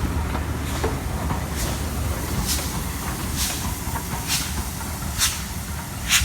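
Steam locomotive pulling away with its cylinder cocks open: a sharp hissing blast of steam and condensate roughly once a second over a low rumble. The cocks are open to clear condensed water from the cylinders.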